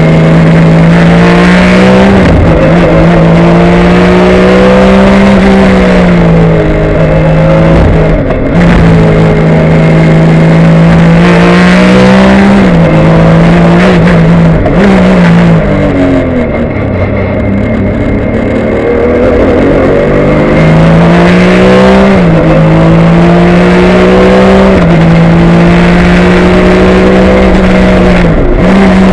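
A Porsche 996 GT3 Cup race car's flat-six engine, heard loud from inside the cockpit at racing speed. The pitch climbs and drops sharply at each gear change. About halfway through it eases off and falls away under braking and downshifts, then builds again.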